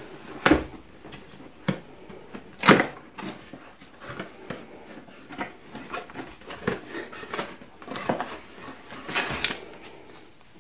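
A cardboard box being opened by hand: lid and flaps folded back and the cardboard and paper inserts pulled out, with irregular rustling, scraping and small taps. The sharpest knocks come about half a second in and again near three seconds in.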